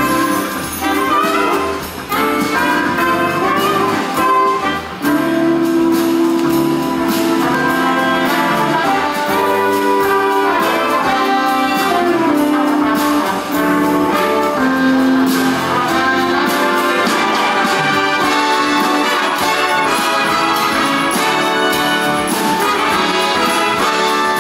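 Instrumental music with brass playing melodic lines.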